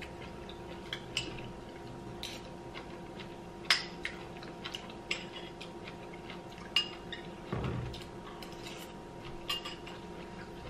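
Metal spoon clinking and scraping against a small glass bowl in scattered light clicks, over a steady faint hum.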